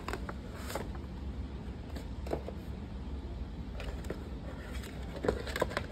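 Cardboard packaging being handled: light taps, scrapes and rustles as a box lid and insert are lifted and a plastic handset is taken out of its tray, with a small cluster of taps near the end. A steady low hum runs underneath.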